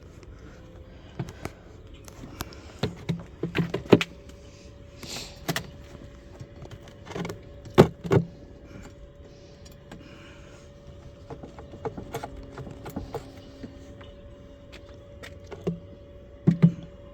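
Wooden beehive frames and a metal hive tool clacking and knocking in irregular sharp strikes as a dead-out hive is taken apart and its frames pulled. The loudest knocks come about four and eight seconds in and again near the end, over a faint steady hum.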